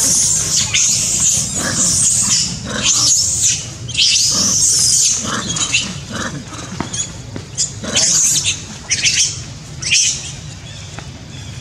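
Long-tailed macaques screaming during a scuffle: a string of about a dozen shrill screams, each under a second long, densest and loudest in the first five seconds and coming more sparsely after that.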